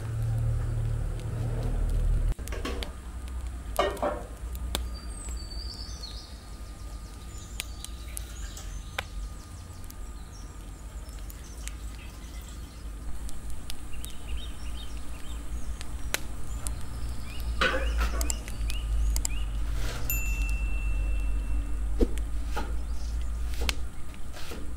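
Onions being peeled and handled with a knife and rinsed in a metal pot: scattered light clicks and knocks over a steady low rumble.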